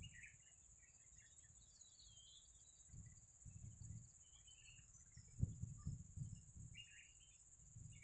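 Faint open-country ambience: a steady high insect drone, like crickets, with a few short bird chirps scattered through it. Low rumbling noise comes and goes underneath, loudest a little past halfway.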